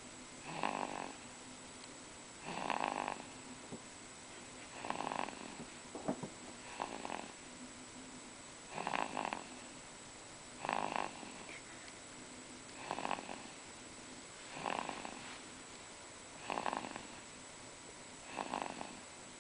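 Two-month-old baby snoring in sleep, one snore about every two seconds, ten in all, evenly spaced.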